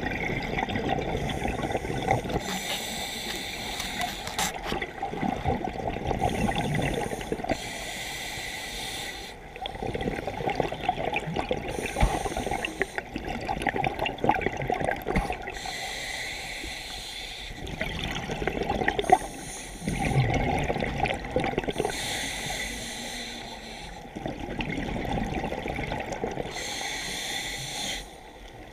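Scuba diver breathing through a regulator underwater: a hiss on each inhale alternating with the bubbling rush of exhaled air, repeating every few seconds.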